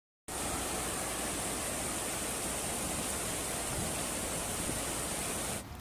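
Hailstorm: a steady, dense hiss of hail and rain coming down on the street and rooftops, starting abruptly and cutting off suddenly near the end.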